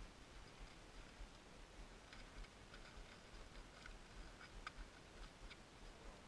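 Near silence with a few faint, scattered small clicks and ticks.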